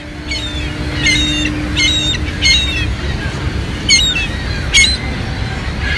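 Juvenile gull calling: six short, high-pitched calls, each slurring downward, repeated about every 0.7 s with a pause in the middle, over a steady low rumble.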